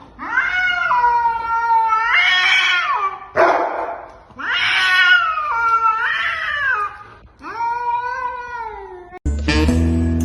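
A cat yowling: three long, drawn-out calls that waver and bend in pitch, with a short rush of noise between the first two. Music comes in near the end.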